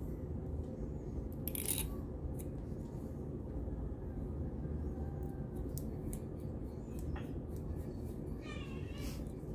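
A plastic comb and fingernails scratching a scalp through short coiled hair: faint scratchy clicks over a steady low background hum. A short, high, wavering cry comes near the end.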